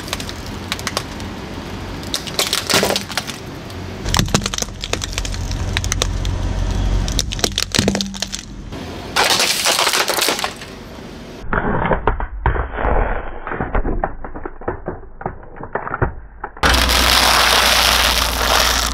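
Objects cracking and crunching one after another under a slowly rolling car tyre: the plastic body of a compact digital camera, a plastic toy water gun and a bundle of dry spaghetti, with many sharp cracks and snaps and sudden changes in the sound between shots.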